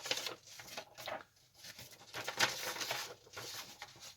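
Paper rustling and crinkling in irregular bursts as a kit's printed leaflet is handled and turned.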